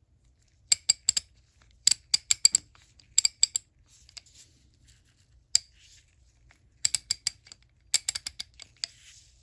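Vintage Snap-On No. 71-M half-inch drive ratchet clicking in several short runs of sharp metallic clicks, with pauses between: the pawl snapping over its coarse 20-tooth gear as the handle is swung back.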